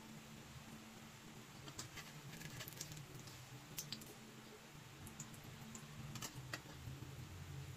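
Metal spatula clicking and scraping against a steel pan while flipping and pressing a pancake, in light clusters about two, four and six seconds in, over the faint steady sizzle of the pancake frying in oil.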